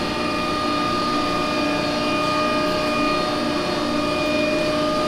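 Steady mechanical hum of factory shop machinery or ventilation, with a constant whine in it.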